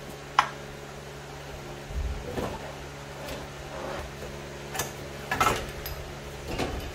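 Metal parts and hand tools being handled on a mini bike during a teardown: a sharp click about half a second in, a dull thump about two seconds in, then scattered knocks and scrapes, over a steady low hum.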